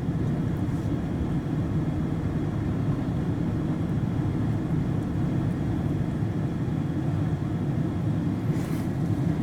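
Steady low rumble inside a van cabin with the engine idling and the air conditioning blowing on fan 2. There is a faint brief rustle near the end.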